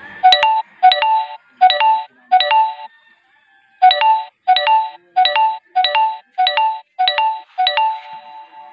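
Loud repeated electronic chime tones, each starting sharply and fading, about one every 0.7 seconds: four, a pause of about a second, then seven more.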